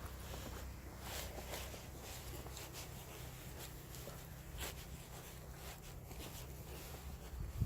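Footsteps crunching in snow at a walking pace, about one step a second, over a steady low rumble.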